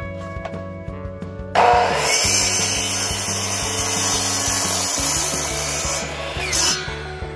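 Delta miter saw starting up about a second and a half in and cutting through a wooden board. It runs steadily for about four and a half seconds, then stops with a brief louder burst.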